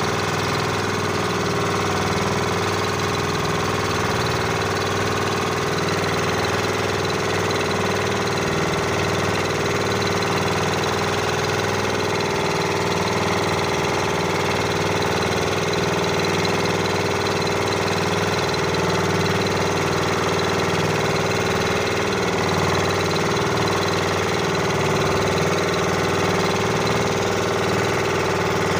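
Boat engine running steadily at an unchanging speed.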